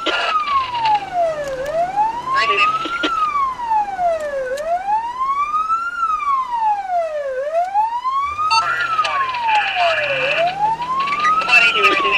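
Emergency vehicle siren in wail mode: one loud tone sliding slowly up and down, about three seconds per rise and fall.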